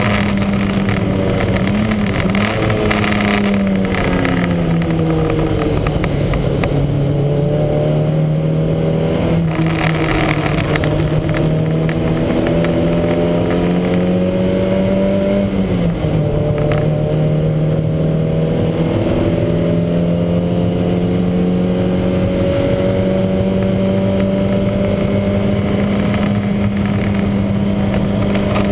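Lancia Montecarlo race car's engine running hard, its pitch falling twice as the revs drop, then slowly climbing again. The engine has a huge misfire.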